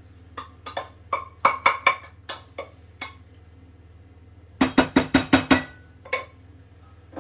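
Stainless steel saucepan knocked against the rim of a bowl to shake out the last of the cooked rice, each knock with a short metallic ring: several scattered knocks, then a quick run of about seven knocks in a row past the middle.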